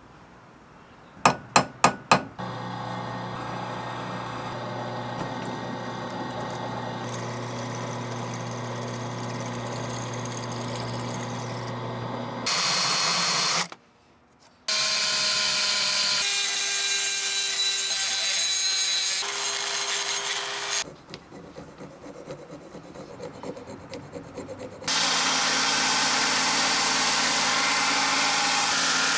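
Four quick sharp taps of a hammer on a center punch against steel. Then a drill runs steadily as it bores into the O1 tool steel handle. Near the end a 2x42 belt grinder runs loud and steady while a steel part is held against the belt.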